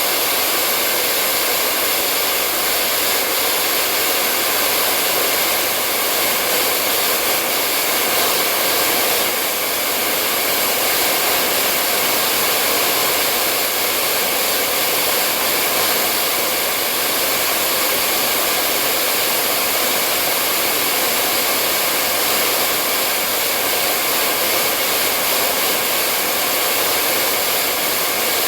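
Handheld hair dryer running continuously: a steady blowing whoosh of fan and airflow with a faint whine, unchanging in level.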